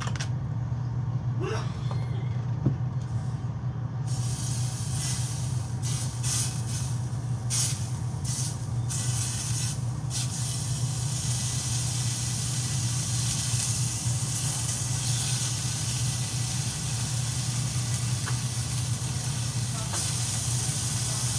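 Food sizzling in a frying pan: a steady hiss with short crackles and spits between about four and ten seconds in, over a constant low hum.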